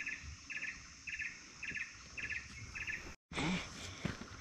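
Insect chirping in short pulsed bursts, a little under two a second, over a steady high hiss. The chirps break off with a sudden cut about three seconds in, and a short, louder low sound follows.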